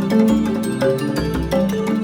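Background instrumental music with a steady beat and plucked-string notes.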